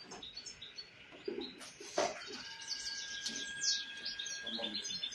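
Small birds chirping and twittering continuously in high, quick repeated notes, with a single sharp click about two seconds in and a steady high tone that sets in just after it.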